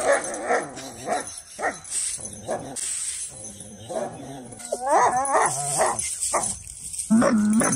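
A dog vocalizing in a string of short whines, yips and barks that bend up and down in pitch, with a longer, lower call near the end.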